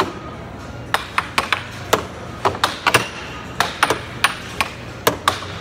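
Air hockey puck and mallets clacking in a fast rally, the puck knocking against the mallets and the table's metal rails: about fifteen sharp knocks at uneven intervals, some with a brief metallic ring.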